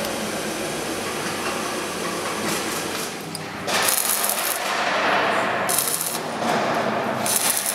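Electric arc welding on a metro car's steel frame: a sharp crackling sizzle that comes in three spells, starting about halfway through and again near the end, after a steady workshop hiss.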